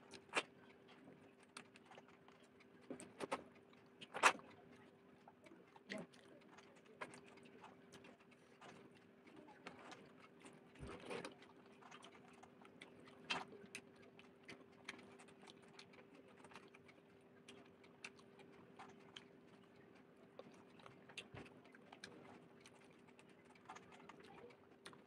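Soft, irregular eating sounds: fingers mixing rice and tilapia curry on a steel plate, with chewing and lip smacks as small clicks, the sharpest about four seconds in. A faint steady hum sits underneath.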